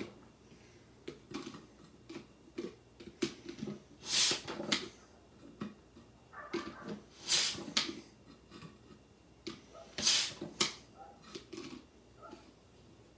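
Plastic Eggstractor egg-peeler cup being pumped up and down on its base to push out a hard-boiled egg: irregular plastic clacks and short hissing bursts, the loudest about four, seven and ten seconds in.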